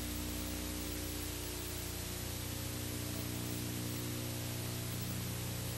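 Steady tape hiss with a low electrical hum underneath, the noise of an old videotape's audio track carrying no program sound.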